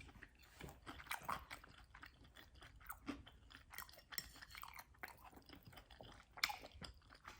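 Close-miked chewing of homemade sushi rolls: irregular small wet clicks and crunches from the mouth, with one louder click about six and a half seconds in.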